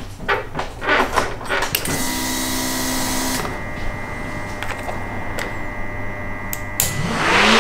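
A few clicks and knocks, then a small electric motor starts about two seconds in and runs with a steady whine. Near the end a louder rushing noise comes in, its pitch rising and then falling.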